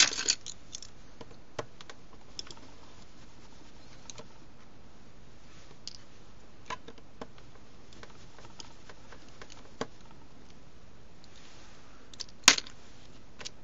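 Small hand tool clicking against the metal of an Olympus M-1 camera body during disassembly: a short run of clicks at first, then scattered single light clicks, with one sharper click near the end.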